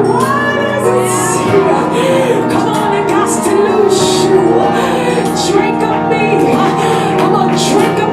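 Worship music: held keyboard chords sustained under a voice singing without clear words.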